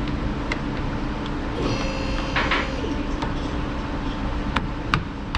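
Several light plastic clicks and a brief rubbing sound about two seconds in as a plastic trim cap is fitted back into the trunk lid's inner panel, over a steady background hum of the garage.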